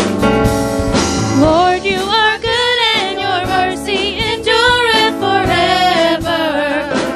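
Live gospel worship music: a band plays chords, and from about a second and a half in a singer comes in, holding notes with a wavering vibrato over the accompaniment.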